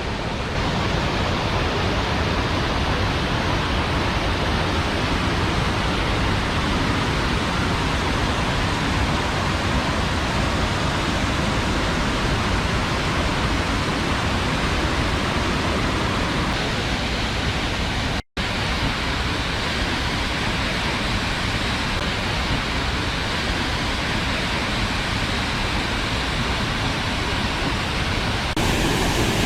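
Waterfall rushing: a loud, steady, even hiss of falling water. Its tone shifts abruptly a few times, and it drops out for an instant about eighteen seconds in.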